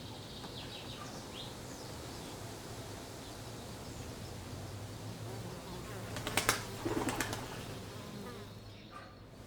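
Garden ambience: an insect buzzing steadily, with faint bird chirps. About six and a half seconds in comes a brief cluster of sharp rustling, flutter-like sounds, the loudest thing heard.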